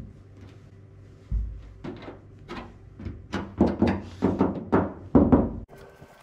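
Hands pressing and patting a stick-on emblem onto a truck's painted steel fender to seat its VHB tape, making a series of about ten dull thumps on the sheet metal that get louder toward the end.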